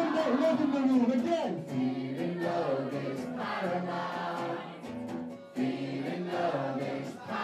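Live singing: a man singing into a microphone with a crowd of people singing along.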